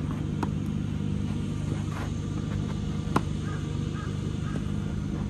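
Tennis ball struck by rackets in a doubles rally: a few sharp pops, the loudest just after three seconds in, over a steady low outdoor rumble.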